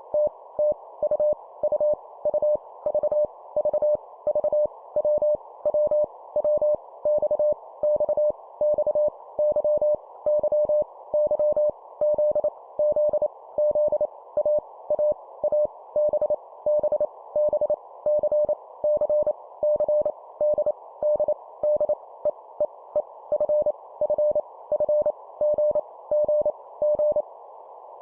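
Morse code sent at 25 words per minute, each letter repeated three times, as a single steady tone keyed on and off over a band of hiss. The keying stops shortly before the end, leaving only the hiss.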